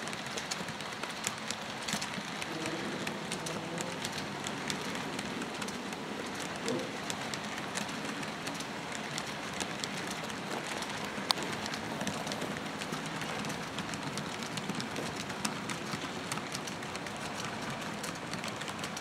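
HO scale model freight cars (plastic tank cars and covered hoppers) rolling past on metal track: a steady rattling hiss of small wheels on the rails, with many fine clicks as they run over rail joints and one sharper click a little past halfway.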